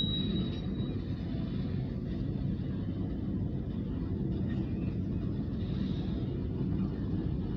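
Diesel locomotive of a short freight train rumbling steadily as it rolls slowly past, heard from inside a car.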